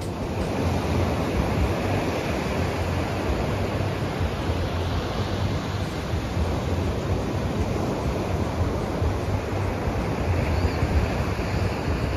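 Ocean surf breaking steadily on a sandy beach and against a rock jetty, with wind on the microphone adding a low rumble.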